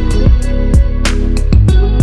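Background music with a steady beat: deep kick drum and sharp percussion hits over sustained bass notes.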